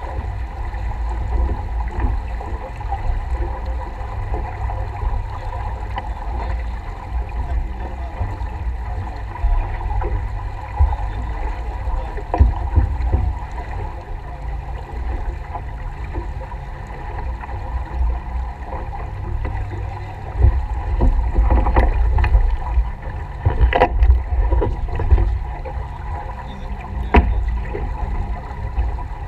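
Wind buffeting the microphone and water rushing along the hull of a small racing sailboat under way, a steady low rumble and wash. A few sharp knocks come late on, the loudest about three-quarters of the way through.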